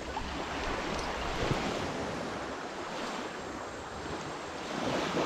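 Surf washing onto a beach, a steady rush of waves with wind on the microphone.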